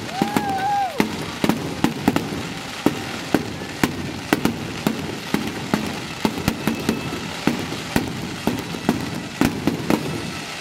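Fireworks display going off: a rapid, uneven string of bangs and crackles, two or three a second, from low-bursting aerial shells.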